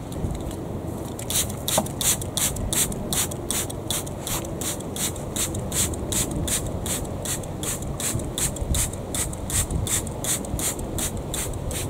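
Handheld plastic trigger spray bottle pumped over and over, a short hiss with each squeeze at about three sprays a second, starting about a second in.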